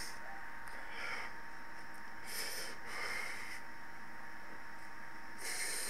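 A person breathing out sharply through the nose a few times, close to the microphone, over a steady electrical hum and hiss.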